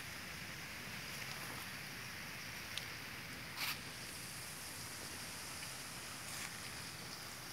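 Steady outdoor background noise, with a single short rustle about three and a half seconds in.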